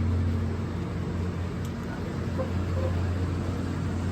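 Street traffic noise dominated by a steady low engine hum.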